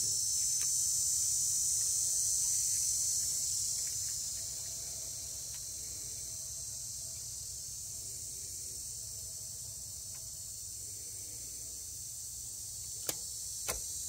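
Steady high-pitched insect chorus. Near the end come two sharp clicks a little under a second apart, from hands working the throttle cable end onto its pin.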